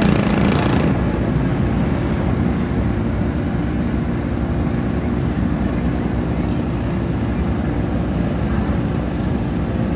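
Engines of a pack of junior sprint race cars running at low speed around a dirt oval, a steady blended drone of several motors. A short rush of noise comes at the very start.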